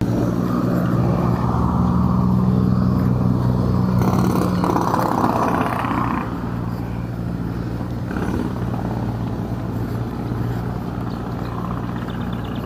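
A motor vehicle engine running with a steady low hum, over road and wind noise; it is louder for the first six seconds or so, then eases off.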